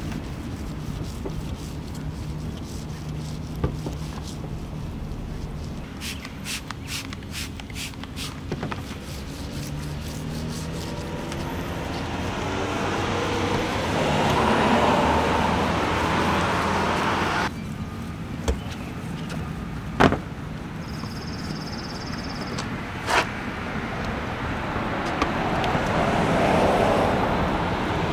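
Pressure washer rinsing a car: a steady motor hum under a hiss of water spray that swells, cuts off suddenly midway when the trigger is released, and starts again near the end. A few short clicks and sharp knocks are heard along the way.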